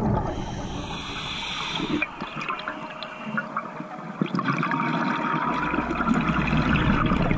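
Bubbles rushing from a scuba diver's regulator underwater: a steady rush of noise with scattered small clicks.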